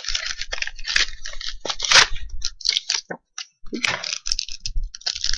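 Foil booster-pack wrapper of Yu-Gi-Oh! trading cards crinkling and tearing as it is handled and opened, in irregular crackly bursts with short pauses.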